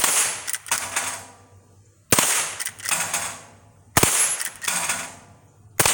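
Henry Mare's Leg .22 LR lever-action firing four shots, about two seconds apart, each followed by a few quieter clicks.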